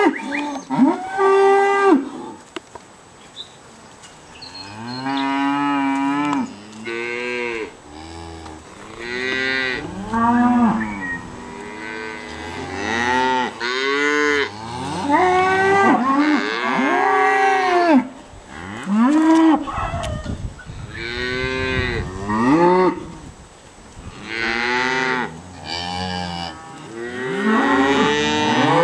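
Several Angus cows mooing, one call after another with few gaps, sometimes overlapping; each call rises and then falls in pitch, some higher and some deeper.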